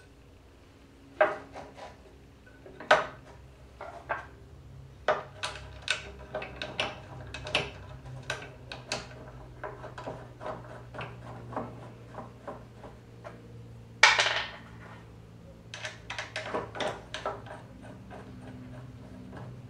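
Hand tools and small metal parts clinking and knocking against the aluminum plates of a CNC router's Z-axis carriage as it is bolted together. Irregular clicks and taps, with sharper knocks about a second in and at about three seconds and the loudest clatter about fourteen seconds in, over a faint steady hum.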